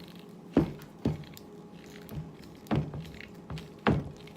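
Thick insulated copper cable being worked through the steel core of a microwave oven transformer: several sharp knocks and taps at irregular intervals as it is handled.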